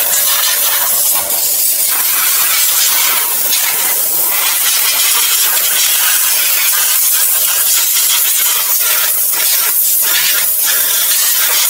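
Compressed-air spray gun with a suction-feed canister hissing steadily as it sprays cleaning solvent onto a truck axle's bare hub spindle, washing it down before the new wheel seal goes on.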